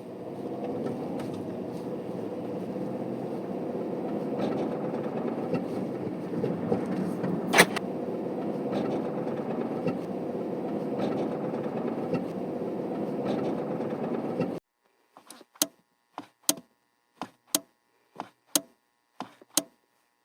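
Renault Samsung SM3 driving off: a steady engine and road noise heard in the car, with a faint tone that rises slightly and a single sharp click about halfway. The noise cuts off suddenly, and about six short sharp clicks follow, roughly a second apart.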